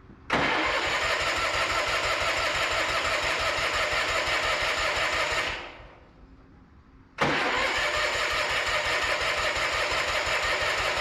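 The 1996 Craftsman riding mower's 18 hp Kohler Magnum M18 engine is cranked over by its electric starter twice, each time for about five seconds with an even, rapid pulse, then winds down when the key is released. It does not catch and keep running.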